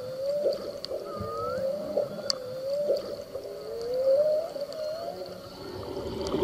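Underwater marine mammal calls: a series of gliding, mostly rising tonal calls, one about every second, several ending in a quick downward swoop, with a few sharp clicks between them.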